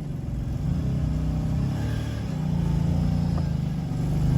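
Off-road vehicle's engine running at low revs, a steady low drone that gets a little louder about halfway through.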